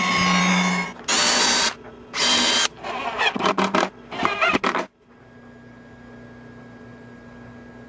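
A CNC router spindle cutting pine for about a second, then a cordless drill driving screws into a pine board in several short start-stop bursts with a whine, which end about five seconds in. After that only a low steady hum remains.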